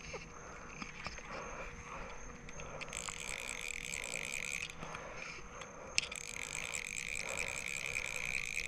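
A chorus of calling animals: a high, fast-pulsing buzz that comes in about three seconds in, breaks off briefly, and starts again about six seconds in.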